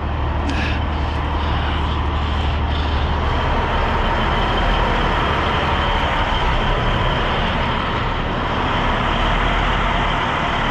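Heavy diesel truck engine idling: a steady low drone with engine noise above it.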